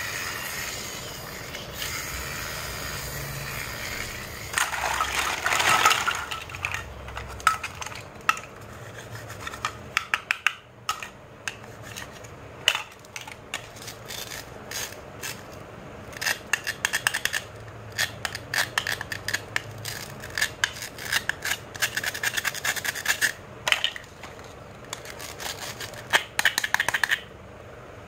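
Hard plastic toys handled over a heap of other plastic toys: rubbing and scraping, with spells of quick clicks and clacks as the pieces knock together.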